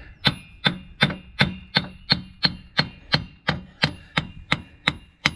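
Hammer tapping on the end of a 2004 Chevrolet Silverado's front axle shaft to knock it loose from the wheel hub. The blows come steadily, about three a second, each a short knock with a slight metallic ring.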